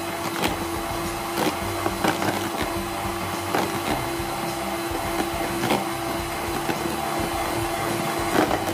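Electric hand mixer running steadily, its beaters whipping egg whites and sugar into meringue, with a few sharp clicks as the beaters knock against the plastic bowl.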